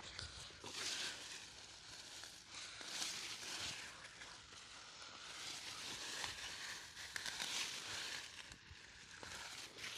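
Rustling and crackling of leaves and stems as creeper vines are pulled up by hand, swelling and fading every second or two.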